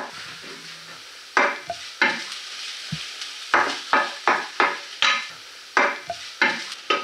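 Chopped onion frying in a pan with a steady sizzle, stirred in repeated scraping strokes from about a second and a half in: the onion is being sautéed and stirred often so it doesn't scorch.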